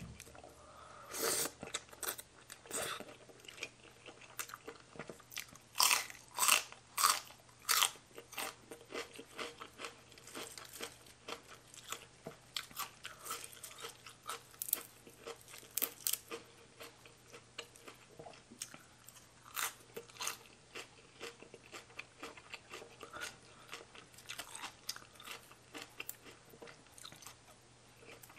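A person chewing and crunching mouthfuls of spicy mixed salad with raw greens and noodles, eaten by hand, heard close up. Irregular crisp crunches throughout, with four loud ones in quick succession about six to eight seconds in.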